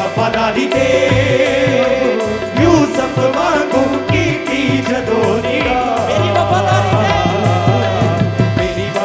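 Qawwali music: a steady drum beat under a melodic line.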